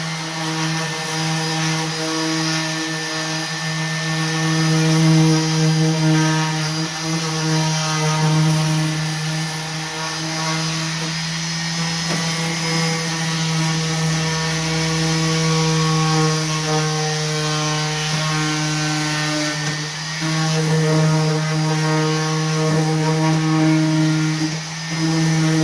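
Electric orbital sander running steadily on painted wood, with a constant motor hum over the rasp of the sandpaper, distressing the paint on a chest of drawers. The level swells and dips slightly as the sander is pressed and moved.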